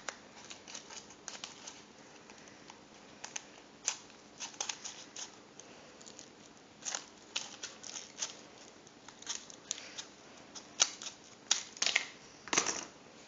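Scissors snipping through thick folded paper: a series of short, sharp snips in irregular bunches.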